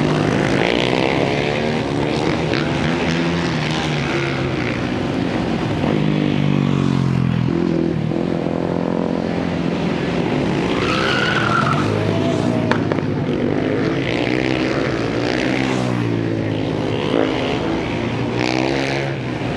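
Racing motorcycle engines on a track, several at once, revving up and dropping in pitch again and again as the bikes shift gears and brake into the corners.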